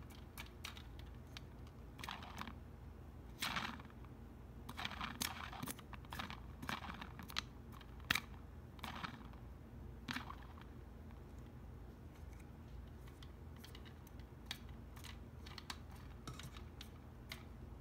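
Irregular light clicks and taps of a small plastic toy figure and its flower being handled and turned, most of them in the first half, over a steady low room hum.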